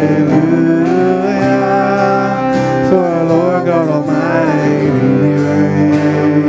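Church worship band playing a slow song: singers holding long, wavering notes over guitars.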